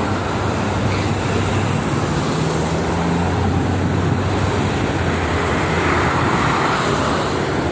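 Steady roar of heavy multi-lane highway traffic: tyre noise from a stream of cars and freight trucks, with the low drone of truck diesel engines in the first half and a swell near the end as vehicles pass close.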